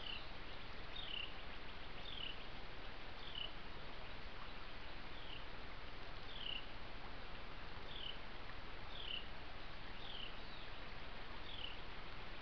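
An animal giving short, high chirps that slide downward, repeated about once a second, over a steady hiss.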